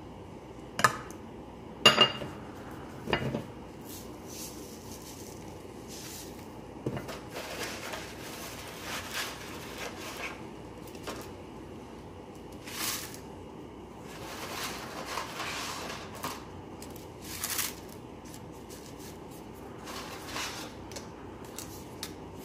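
Stainless-steel pot of water on the boil, with a steady hiss. There are a few sharp metal clinks in the first three seconds, then short swishing rustles as oil, salt and dried fettuccine go into the water.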